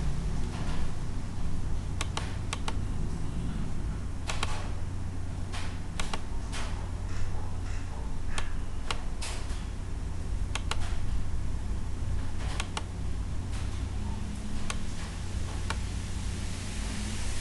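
Irregular clicks of a computer mouse, some in quick pairs, over a steady low hum.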